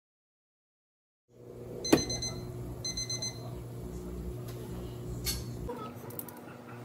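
Electric cooktop's control panel beeping: two short runs of high pips about a second apart, with a click at the first. Under them a steady low electrical hum from the hob heating a pot of water, which stops near the end.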